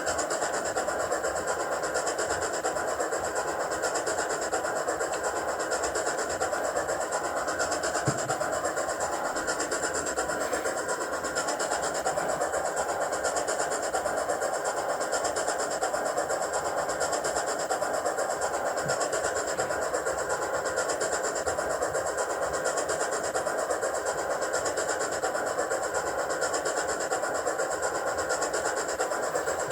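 Hornby Black 5 (5MT) model steam locomotive running steadily, its onboard digital sound playing steam-locomotive running sounds through a small speaker along with the whirr of its motor and wheels.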